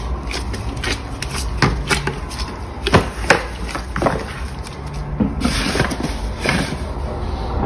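Gloved hands kneading and turning a large ball of bread dough in a metal bowl: soft rubbing and pressing, with scattered short taps and knocks against the bowl, over a steady low hum.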